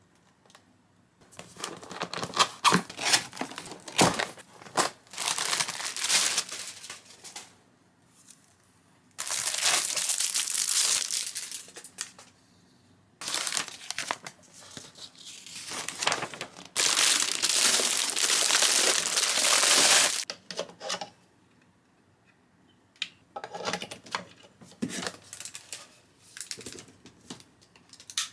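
Packaging being crinkled and torn by hand in a series of bursts, two of them lasting a few seconds each, that start and stop abruptly with quiet gaps between.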